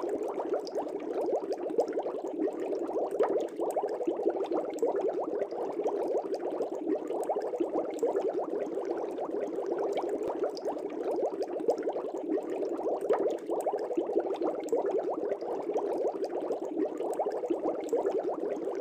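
Aquarium air bubbles rising and burbling at the water surface in a fish tank: a steady, dense bubbling with many tiny pops.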